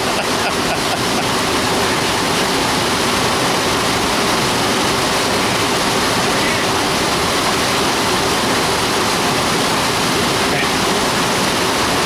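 River rapids and a waterfall rushing over rocks in a loud, steady roar of white water.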